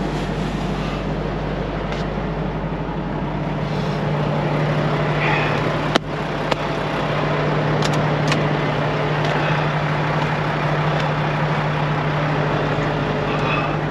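Volvo VNL 760 semi-truck's diesel engine idling steadily, with a single sharp click about six seconds in.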